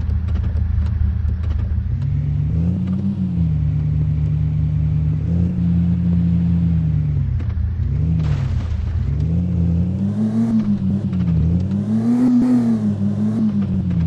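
Mahindra Thar SUV engine running under way, its revs rising and falling repeatedly, with several quick rises in pitch in the second half and the highest about twelve seconds in.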